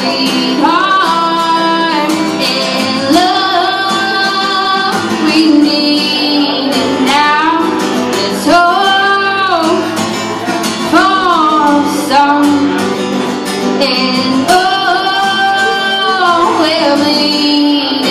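A woman singing with her own strummed acoustic guitar, the voice gliding up into long held notes.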